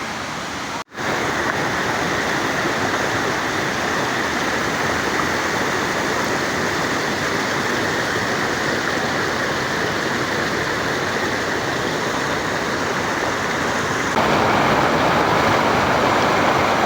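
Rushing river water, a steady loud hiss. It cuts out for an instant about a second in and comes back louder near the end.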